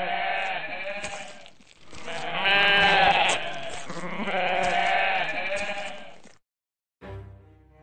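Goats bleating: about three long, wavering calls one after another. They cut off abruptly just after six seconds in, and music starts near the end.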